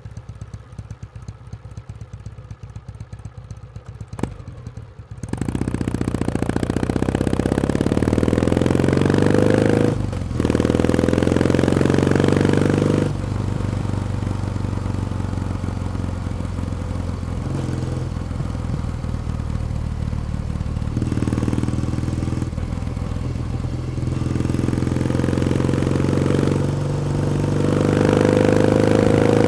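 Kawasaki W1 Special's OHV vertical-twin engine running quietly at idle, with a sharp click about four seconds in. The bike then pulls away and accelerates hard through the gears, its exhaust note rising and dropping at each shift. It settles into a steadier run, then climbs in pitch again near the end.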